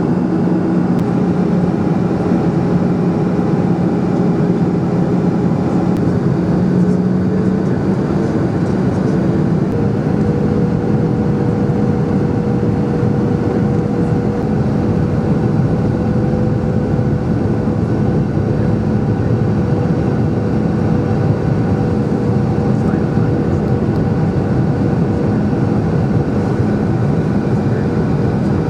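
Steady cabin noise inside a Boeing 737-800: its CFM56 jet engines and rushing air, with hums that change pitch about a third of the way in.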